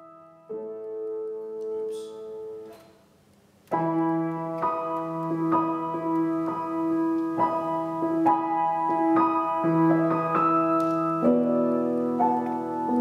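Piano music: a soft opening phrase, a brief pause, then a louder, fuller passage of chords changing about once a second.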